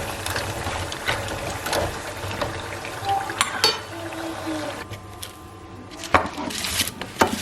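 Kitchen sounds: scattered clinks and knocks of dishes and utensils over a steady low hum and a watery hiss.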